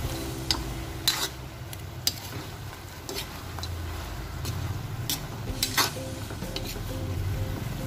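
Cabbage, onion and shrimp being stir-fried in a pan, with a steady low sizzle. A utensil scrapes and clanks against the pan several times: about a second in, at two seconds, and twice around five to six seconds.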